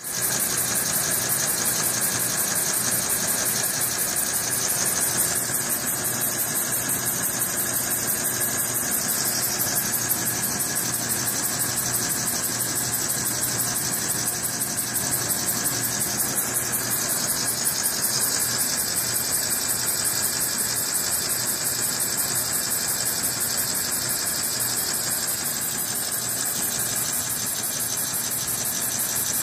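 Small homemade model steam engine with a brass cylinder and steel flywheel running fast and steadily, its exhaust hissing in a rapid, even puffing rhythm.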